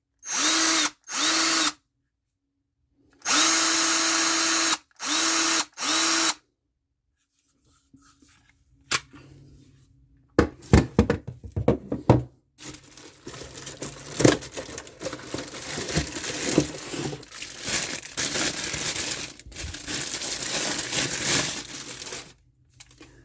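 Hart 20V cordless drill run in five short trigger pulls in the first six seconds, a steady motor whine starting and stopping each time. From about eight seconds in, a long stretch of irregular clattering and rustling with sharp knocks as tools and packaging are handled.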